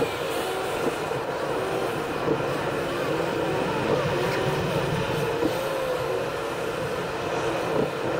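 Steady road and engine noise inside a car cruising on an expressway.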